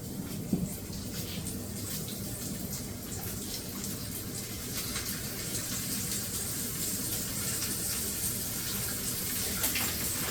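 Oil heating in a fish fryer, hissing steadily with fine crackles that grow thicker as it slowly gets louder: the oil is nearing frying temperature.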